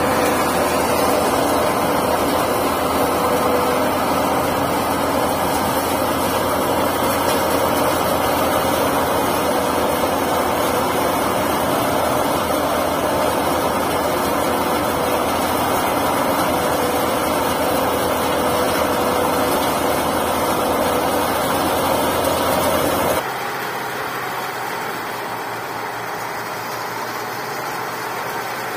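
Tractor-driven Santosh soybean thresher (haler) running steadily as soybean plants are forked into its hopper: a dense, even mechanical din of the threshing drum and the tractor engine. About three quarters of the way through, the sound drops suddenly to a quieter, thinner level.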